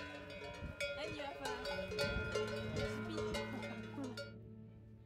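Many cowbells on a grazing herd of cattle clanking irregularly, stopping about four seconds in. Steady low musical tones run underneath.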